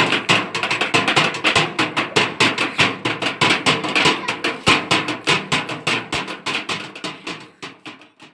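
Children drumming fast on an empty metal tin and a box as makeshift dhol drums, a rapid run of sharp beats that fades out near the end.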